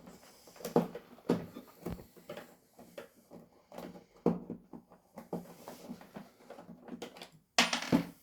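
Irregular clicks, knocks and light rattles of a device being handled and taken apart with tools, louder knocks near the end.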